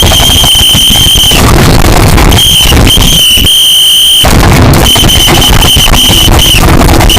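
A very loud, distorted, shrill whistle-like tone sounding in irregular blasts, some under half a second and some over a second, over a harsh crackling noise.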